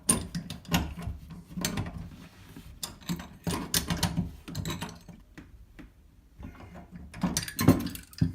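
Wrench and channel-lock pliers clicking and scraping against the compression nut and body of a new toilet supply valve as the nut is tightened onto the copper tube, in irregular bursts that are quieter just past the middle and loudest near the end.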